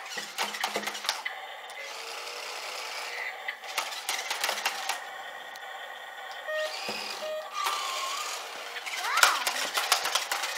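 Battery-powered RC stunt car's electric motors whirring as it spins and flips on a tile floor, its plastic wheels and body clattering and knocking. A few short electronic tones and a pitch sweep from its built-in sound effects come in over the second half.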